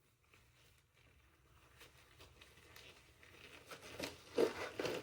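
Sterile glove rustling and crinkling as a hand is pushed into it, faint at first and louder near the end with a few sharp crinkles.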